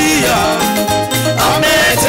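Live gospel praise music: a lead singer with backing vocals over an upbeat band.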